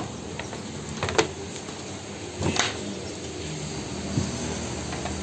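Stiff MDF picture boards being handled: a sharp click about a second in and a short knock about two and a half seconds in as the boards are shuffled and lifted, over a steady background hum.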